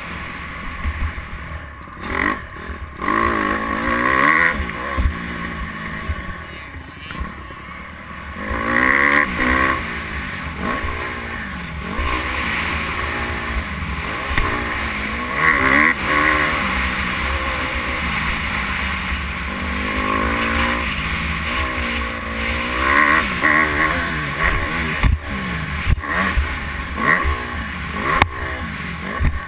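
Dirt bike engine revving up and falling back again and again while it is ridden hard around a motocross track. Steady wind rumble on the microphone runs underneath.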